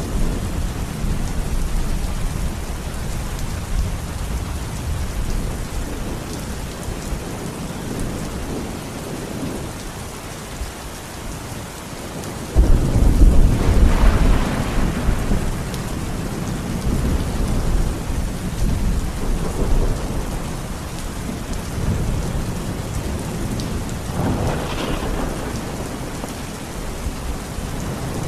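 Steady rain falling, with thunder rumbling: a sudden loud, deep thunderclap about twelve seconds in rolls on for a few seconds, and a softer roll of thunder comes near the end.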